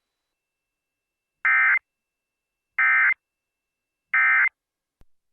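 Emergency Alert System SAME end-of-message data bursts: three short, buzzy electronic chirps, evenly spaced about a second apart, marking the end of the weather warning message. A faint click follows near the end.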